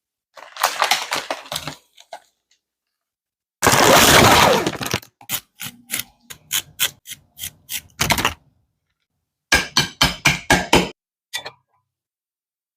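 Sharp cracking and knocking sounds in separate short bursts. First a cluster of clicks, then a dense crackle about four seconds in. After that comes a run of single knocks about three a second, and a quicker run of knocks near the end.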